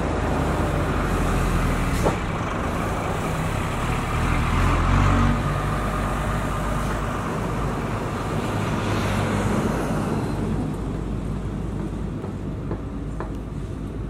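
Diesel engines of heavy road-construction and highway traffic: a road roller and passing trucks, a steady low rumble that swells about four to five seconds in and fades gradually toward the end. A brief knock about two seconds in.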